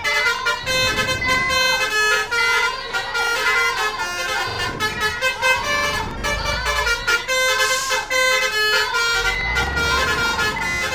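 Multi-tone Basuri 'telolet' air horns playing quick melodic toots, several tones changing pitch every fraction of a second, over vehicle engine rumble that swells several times.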